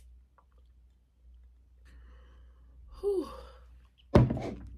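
A person's short sigh, falling in pitch, about three seconds in, after near-quiet room tone with a few faint clicks. Near the end comes a sudden, much louder burst of noise that dies away over about half a second.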